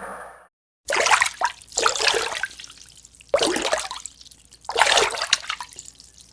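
Water splashing in four surges about a second long each.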